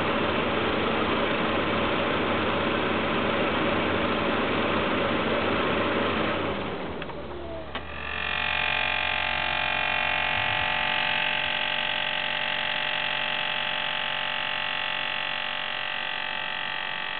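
Saab 9-5 engine idling, then switched off about six to seven seconds in; a click follows, and then an unexplained steady high whine made of several tones sets in and slowly fades, the strange noise this car makes after the engine is turned off.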